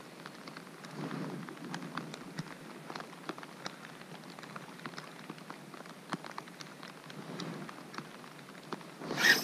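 Steady rain falling on the lake surface and the plastic kayak, a soft hiss dotted with many small raindrop ticks. Near the very end a sudden louder rush of noise starts.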